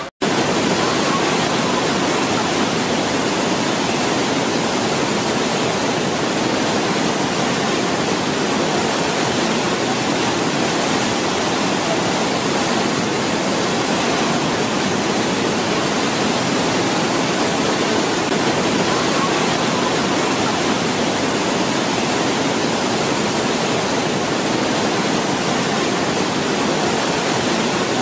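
Loud, steady rushing of turbulent floodwater, an even unbroken roar of water.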